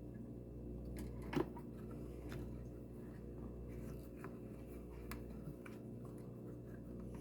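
Light clicks and taps of small parts and tools being handled during an appliance repair, with one sharper tap about a second and a half in, over a steady low hum.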